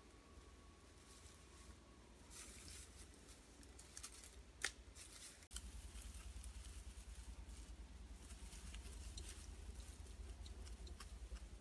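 Faint rustling and scattered light crackles of dry grass and leaves, with one sharper click a little before the middle, over a low rumble that grows stronger about halfway through.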